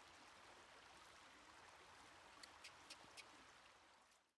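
Faint trickle of a shallow creek running, with four sharp ticks in quick succession about two and a half seconds in; the sound fades out at the end.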